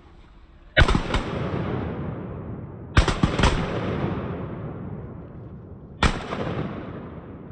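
Shotgun fire in three volleys of quick shots, about a second in, around three seconds and around six seconds. Each volley rolls away in a long echo through the timber.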